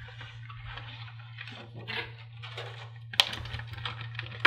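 Clear plastic zip bag crinkling and rustling in the hands as it is handled, in irregular bursts, with one sharp click a little after three seconds in. A steady low hum runs underneath.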